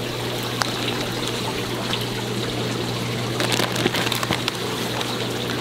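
Steady trickling and pouring of water from the store's aquarium systems over a low steady hum, with a few short crinkles of plastic fish bags being handled about three and a half seconds in.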